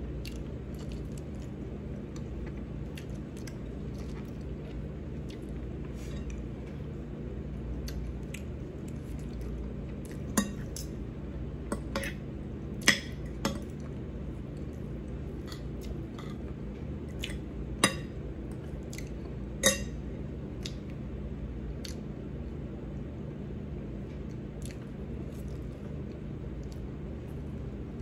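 Spoon and fork clinking against a plate during a meal: a handful of sharp clinks, mostly between about ten and twenty seconds in, over a steady low hum.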